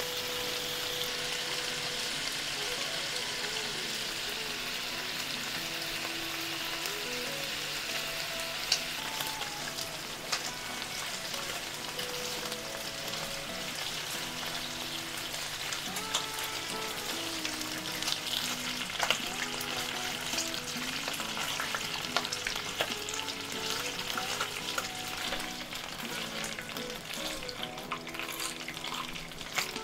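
Slices of pork belly sizzling as they pan-fry in a nonstick frying pan, the fat rendering out into the pan. A few sharp clicks come from the chopsticks turning the slices against the pan.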